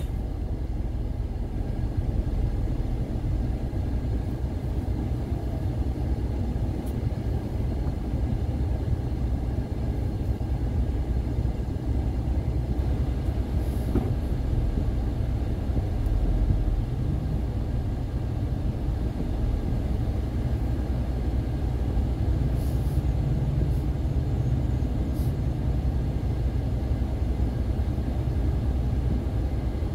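Car driving along a road: steady low rumble of engine and tyre noise, unbroken throughout.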